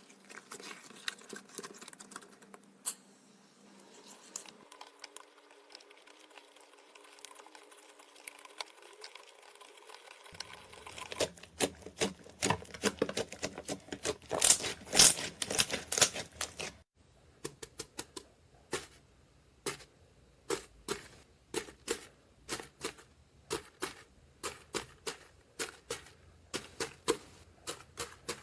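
Slime being squeezed and poked by hand, giving quick sticky clicks and pops. The clicks are faint at first and get louder for a few seconds in the middle. After a sudden cut they come in a steady run of about two a second.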